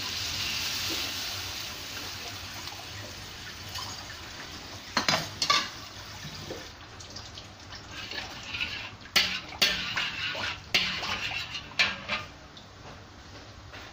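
Water poured into a hot wok sizzles, hissing at first and fading over the first couple of seconds. Then a metal spatula scrapes and clacks against the wok as the liquid is stirred.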